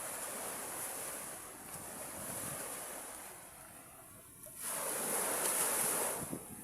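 Sea waves washing up on a beach, with one louder surge of surf about two-thirds of the way through that then falls away.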